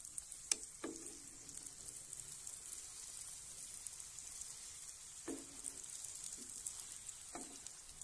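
Aloo paratha frying in hot oil in a non-stick pan, a steady crackling sizzle. A few brief squeaks come about half a second in, near five seconds and near seven seconds.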